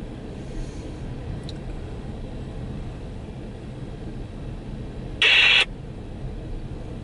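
Empty coal train cars rolling past, a steady low rumble. About five seconds in, a short, loud burst of hissing noise cuts in and stops.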